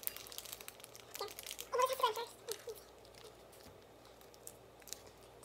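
Small plastic sauce packets crinkling as they are torn open and squeezed, a scatter of light crackles. A brief voice about two seconds in is the loudest thing.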